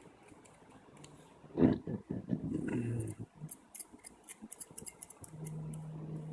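Rebuildable vape atomizer and mod handled while the freshly built coil is pulse-fired to check its glow: a knock about one and a half seconds in, then a run of sharp clicks, and a low steady hum from about five seconds in.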